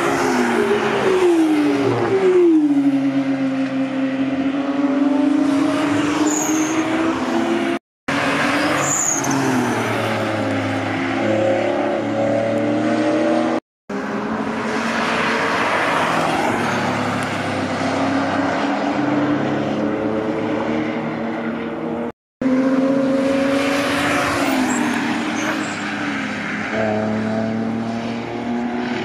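Cars driven hard through a corner and passing one after another, their engines revving and falling in pitch as they brake and lift, then pulling away again. The sound breaks off abruptly three times between passes.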